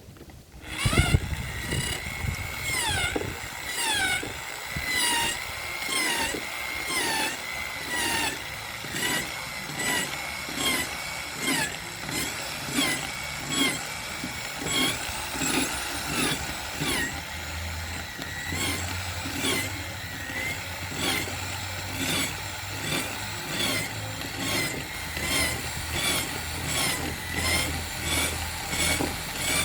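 Hand saw cutting wood in steady back-and-forth strokes, about one and a half strokes a second, with a squeak on many of the strokes.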